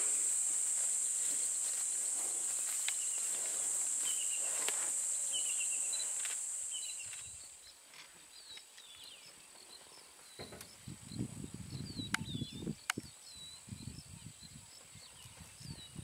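A steady, high-pitched insect drone with small birds chirping short, falling notes. The drone fades out about seven seconds in, and the birds keep chirping. From about ten seconds in there is a low, irregular rumble with a few clicks.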